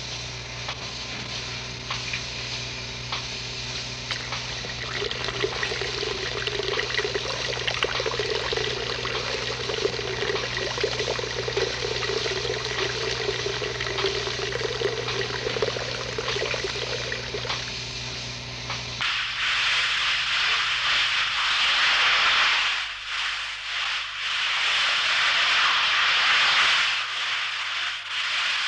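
Steady hum of running workshop machinery with a rushing noise. About two-thirds of the way through it cuts off abruptly and gives way to the louder, uneven hiss of stick (manual metal arc) welding.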